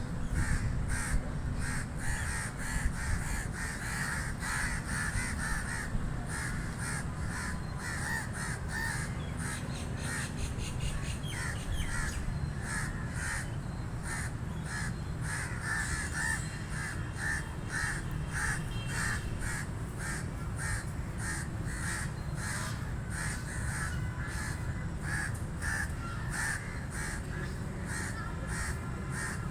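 A group of crows cawing without pause, short caws repeating and overlapping several times a second, over a steady low background rumble.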